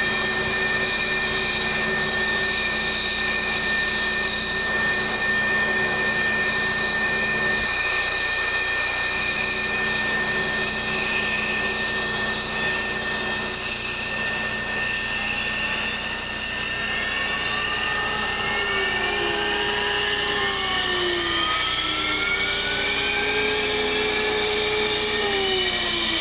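F-15 fighter jet engines running on the ground with a steady high whine. From about two-thirds of the way through, more whining tones slide up and down in pitch as engines change speed.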